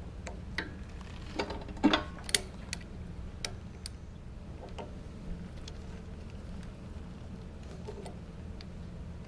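Light metallic clicks and taps of a small Allen wrench working the hex bolts on a pressure washer pump's brass manifold, tightening them by hand. A cluster of sharper clicks comes between about one and two and a half seconds in, then scattered fainter ticks, over a steady low hum.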